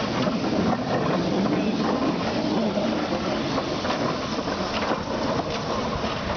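Small 2 ft gauge quarry Hunslet steam locomotive running past and away along the track, with steam hissing and the noise of its running gear on the rails, easing slightly as it draws away.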